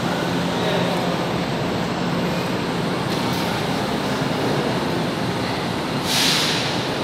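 São Paulo Metro train standing at the platform: a steady low hum over a continuous rushing din, with a short hiss of released compressed air about six seconds in.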